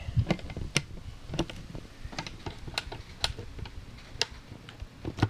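Irregular light clicks and taps, about two or three a second, from handling a costume helmet while fitting its straps, with a low rumble of handling noise underneath.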